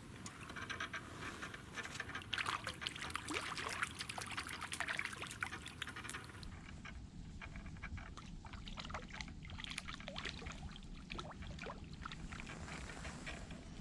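Water trickling and dripping with many small splashes and crackling clicks, busiest in the first half and sparser after an abrupt change about six seconds in.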